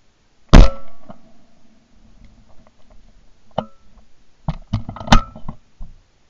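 A single shot from a 20-bore Beretta Silver Pigeon over-and-under shotgun about half a second in, with a short ringing tail. A few seconds later come several sharp metallic clicks of the gun being handled after the shot, as when it is opened and reloaded.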